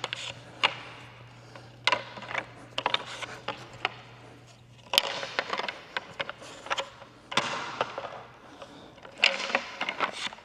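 Parts of a SwiftNet portable pickleball net being taken apart by hand: scattered clicks, knocks and rattles, with one sharp click about five seconds in.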